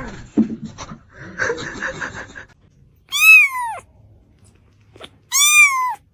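A cat meowing twice, about two seconds apart, each loud call rising and then falling in pitch; a rougher, noisier cry comes before them.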